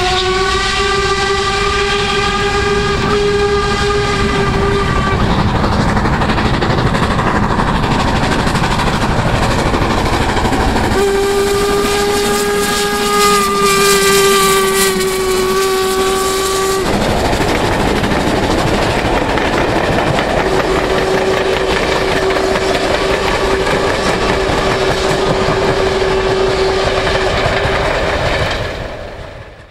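LMS Stanier 8F steam locomotive 48624 passing close at speed with its train, a steady rush of running noise with wheels clattering on the rails. A steam whistle gives three long blasts on one steady note: one at the start lasting about five seconds, another about eleven seconds in, and a fainter one about twenty seconds in.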